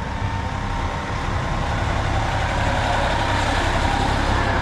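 Heavy fire truck engine running close by with a steady low rumble, growing louder over the second half.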